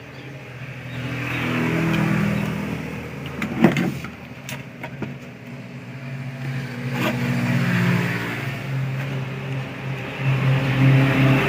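A humming engine or motor with a pitch that drifts a little and a level that swells and fades, like a motor vehicle running nearby. A few sharp clicks come about a third of the way in and again past the middle.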